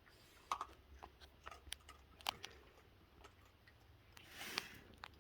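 Raccoons eating cookies: faint, scattered crunches and clicks, with a short rustle near the end.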